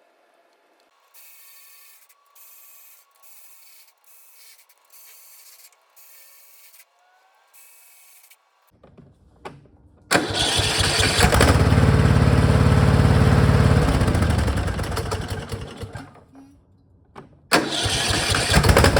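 Cub Cadet lawn tractor engine turning over and catching about ten seconds in, then running loudly with its valves freshly set to 3 thousandths to cure its hard starting. It dies away near sixteen seconds and starts running again near the end. Earlier comes a run of six short bursts, about one a second.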